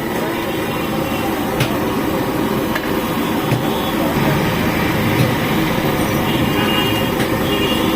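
Busy roadside ambience: a steady din of street traffic with a few short clicks and knocks.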